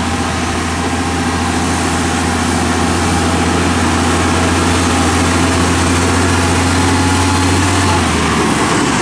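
UD Quester GKE 280 truck's GH8E diesel engine running at low revs as the tractor-trailer rolls slowly, a deep, steady drone. The drone falls away about eight seconds in.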